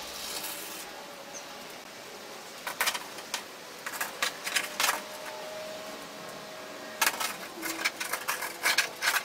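Light metallic clicks and taps in three short bunches, from a can of spray foam being worked along the gaps under a corrugated metal roof.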